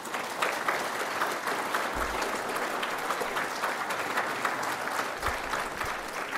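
Audience applauding: many hands clapping together, steady and unbroken.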